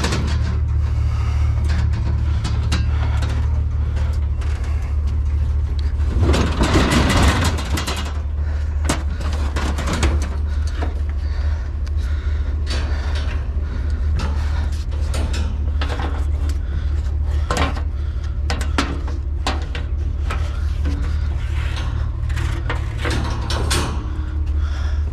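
Steady low hum of an idling truck engine, with scattered clanks, knocks and scrapes of scrap being handled and loaded. A louder scraping rush comes about six to eight seconds in.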